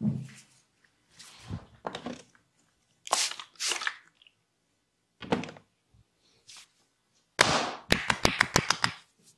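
Hand massage on a client's body: irregular rubbing strokes and thuds, then near the end one longer stroke and a quick run of about ten sharp clicks in about a second.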